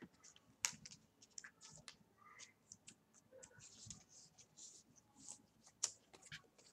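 Faint handling noise of trading cards and a clear plastic card sleeve: soft sliding and rustling with scattered light clicks, the sharpest about two-thirds of a second in and again near six seconds.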